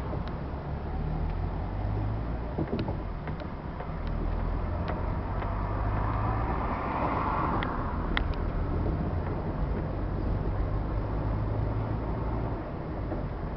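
Road and engine noise inside a moving car's cabin: a steady low engine hum under tyre noise, with a few sharp ticks or rattles. The noise swells for a couple of seconds just past the middle.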